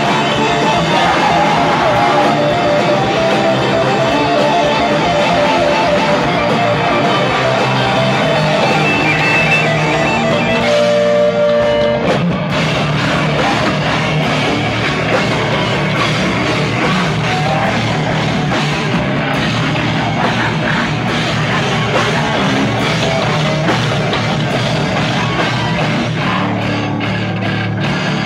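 Live rock band playing loudly, with electric guitars over a drum kit.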